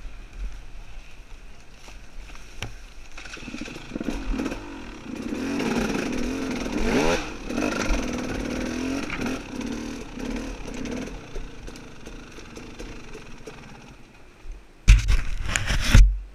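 Dirt bike engine revving, swelling louder with its pitch sweeping up and down through the middle, then fading. Near the end comes a sudden loud, rough burst of noise lasting about a second.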